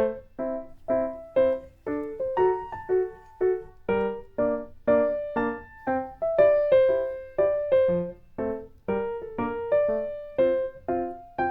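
Background music: a light, bouncy keyboard melody of short, quickly decaying notes at about two or three a second.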